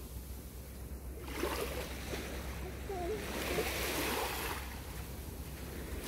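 Surf washing up a sandy beach: the rush of a wave swells about a second in and fades away near the end.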